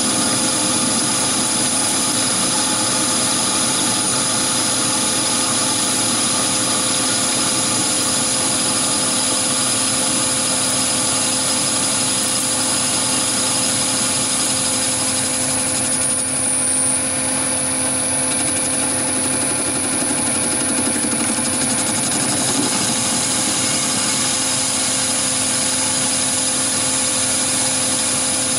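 Chinese mini lathe running under power while its motor-driven compound slide feeds the cutting tool along a taper on a steel workpiece. It makes a steady machine hum with a thin, constant high whine on top.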